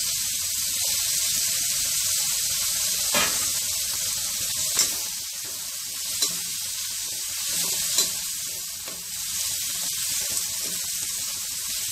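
Chopped onions and freshly added tomatoes sizzling in hot oil in a pan while being stirred with a slotted spatula, which taps sharply against the pan about five times.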